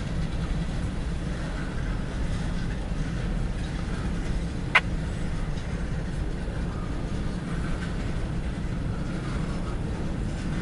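Empty grain train cars rolling past in a steady low rumble, with one sharp clack a little under five seconds in.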